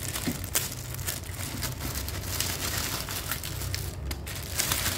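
Plastic packaging of printer ink bottles crinkling and rustling as it is handled, with scattered sharp crackles.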